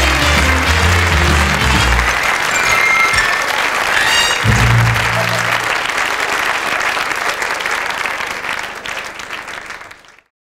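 Audience applauding over music with low held notes, fading away and then cutting off to silence near the end.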